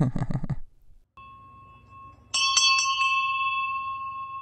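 Small cast bell-bronze bell rung with a quick run of about four strikes, then ringing on with a clear, slowly fading tone: a good-sounding bell. A faint ring is heard about a second before the main strikes.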